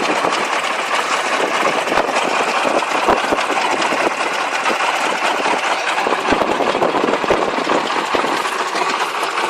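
Rice combine harvester's engine running steadily and loudly, with a dense, fast clatter of knocks over its noise.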